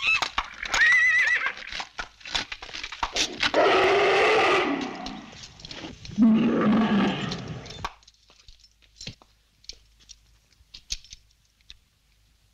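Donkey braying, a run of wavering hee-haw calls, some high and some deep; it stops about eight seconds in, leaving only faint scattered clicks.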